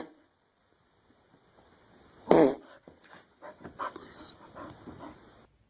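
A dog vocalising: one loud, short, pitched cry about two seconds in, followed by softer scattered dog sounds.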